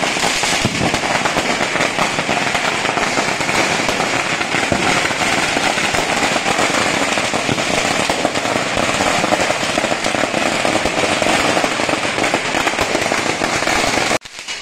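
Firecrackers going off in a rapid, continuous crackle of bangs, the cracks coming too fast to count, breaking off briefly near the end.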